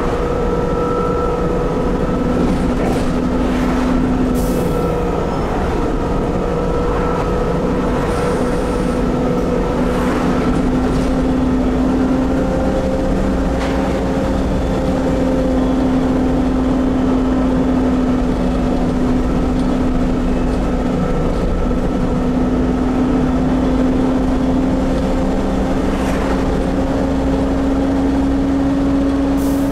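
Volvo B7TL double-decker bus driving under power, heard from inside the upper deck: a steady diesel rumble with a held whine that drifts slightly in pitch, and a few light rattles from the body.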